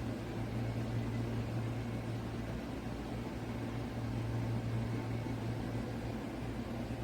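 PC case fans running steadily: an even whir with a low hum underneath.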